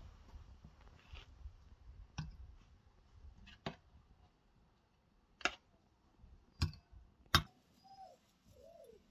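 Kitchenware clinking: a steel ladle and bowls knocking against a stainless-steel mixing bowl and a small glass dish. There are five separate sharp clinks about a second or so apart, and the last is the loudest.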